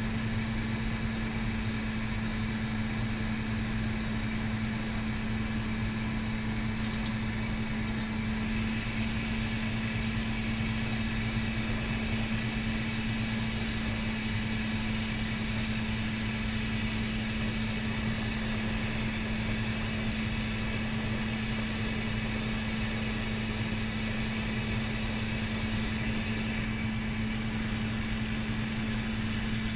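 Glassblowing bench torch burning steadily, a constant rush with a low machine hum under it. A couple of light clicks come about seven seconds in.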